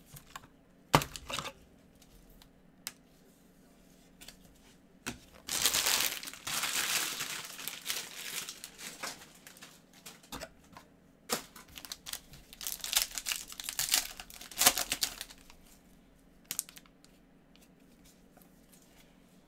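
Trading card pack wrapper torn open and crinkled, in two spells of rustling, about five and about eleven seconds in, after a few sharp clicks from cards being handled.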